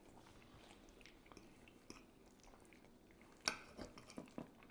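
Faint chewing of breakfast food close to the microphone. About three and a half seconds in there is a sharp click, followed by a few lighter ticks.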